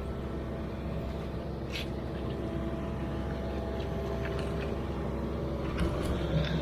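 Yanmar VIO55 mini excavator's diesel engine running steadily while it digs, with a couple of faint clicks about two seconds in and near the end.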